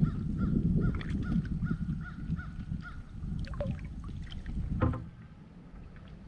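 Low rumble of water and gear handling in a kayak. Over it a bird calls in a quick even series, about three short calls a second for the first three seconds, and there is a single knock about five seconds in.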